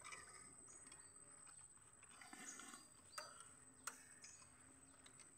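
Near silence: faint outdoor ambience, with two faint clicks about three and four seconds in.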